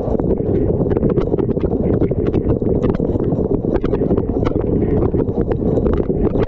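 Water spraying inside a running dishwasher during its wash cycle, heard right up against the jets: a dense, steady low rush of water with rapid, irregular sharp ticks of spray and droplets striking the camera.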